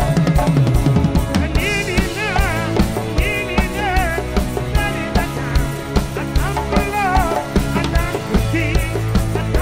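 Live band music with a drum kit keeping a steady beat under electric instruments, and a man singing lead in long, wavering lines from about a second and a half in.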